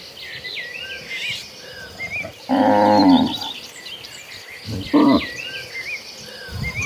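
Cattle mooing: one loud moo about two and a half seconds in, a short call around five seconds, and another moo starting at the very end, with high chirping throughout.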